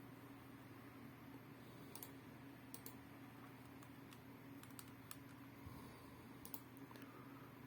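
Faint, unevenly spaced clicks from computer input while colours are entered into an on-screen form, over a low steady hum.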